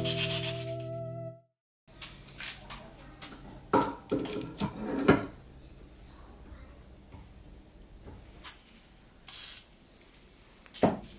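Background music that stops abruptly about a second and a half in. After it, faint, scattered rubbing and scraping of abrasive paper against a steel knife blade forged from an old file, with a few louder strokes.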